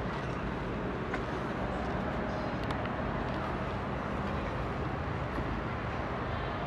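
Steady outdoor background noise, a low hum and hiss, with a few faint ticks.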